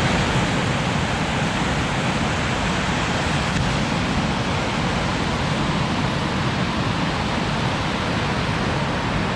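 Small waterfall rushing steadily, close up: an even, loud spray of falling water with no change in level.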